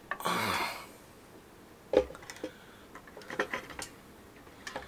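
A resin collectible statue being handled and seated onto its keyed base. A brief rustle, then a single sharp knock about two seconds in as the figure's feet go onto the base peg, followed by a few light clicks.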